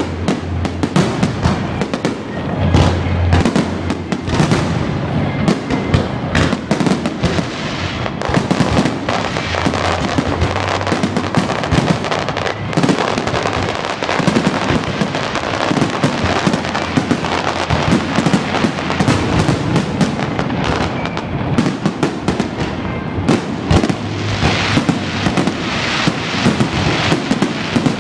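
Aerial fireworks display going off in a dense, continuous barrage of bangs and crackling, with deeper booms now and then.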